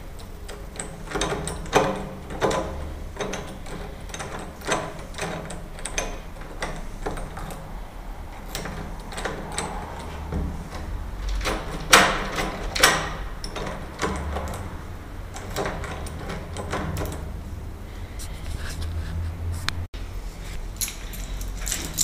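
Key turning and jiggling in a door knob lock's cylinder while the knob is twisted and rattled, giving a string of irregular metallic clicks and knocks, loudest about halfway through. The key fails to unlock the door: the lock is faulty.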